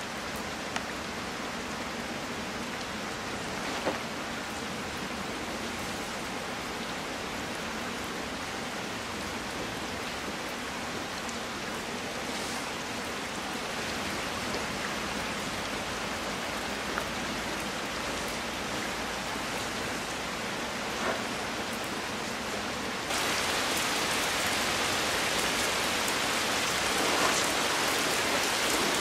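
Heavy rain falling steadily in a dense hiss. It suddenly becomes heavier and louder about three-quarters of the way through.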